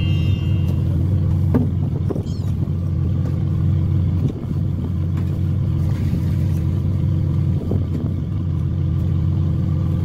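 Steady low hum of a fishing boat's diesel engine running, with a few light knocks of tackle being handled at the rail.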